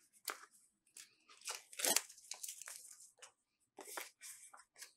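Plastic shrink-wrap being torn open and peeled off a card deck box: irregular crinkling crackles and scratches, the loudest about two seconds in.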